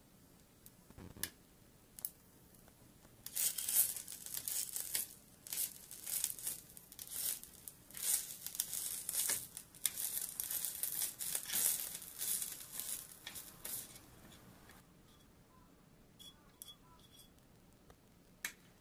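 Red sauce sizzling and crackling in a tiny hot metal pan as it is spooned in and stirred with the food. It is preceded by a couple of spoon clicks and dies down to a few light clinks near the end.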